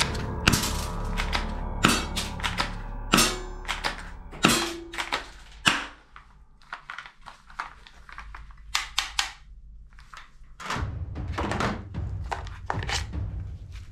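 Plastic toy guns clacking and clicking as they are picked up and handled, with a run of sharp knocks in the first half and a few more later. Background music plays underneath, drops out about halfway and returns near the end.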